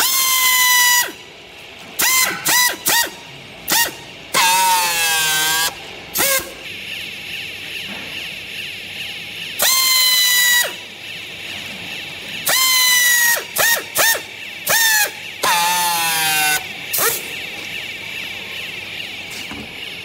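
Pneumatic strapping tool whining in repeated bursts of about a second, with short blips in between, as it tensions and seals green plastic strap around a baled load of used clothing; on the longer bursts the pitch sags and warbles. A steady high hum runs underneath from about a third of the way in.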